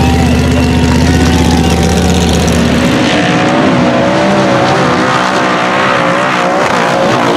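Formula Offroad buggy engine running hard. About three seconds in it changes to a higher, wavering engine note under a steady hiss of water spray as the buggy skims across the water.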